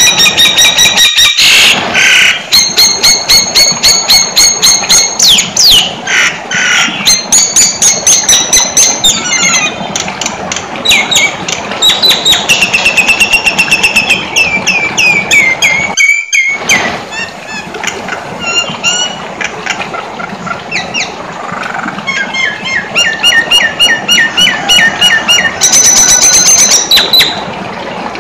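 Nias hill myna singing loudly in long runs of rapid repeated whistles and chattering trills, a 'full isian' song packed with varied mimicked phrases, with a short break about halfway through.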